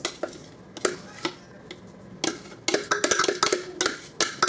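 A spoon knocking and scraping in a plastic food-processor bowl as the chopped mixture is emptied out. Scattered sharp clicks at first, then a quick run of clicks and knocks in the second half.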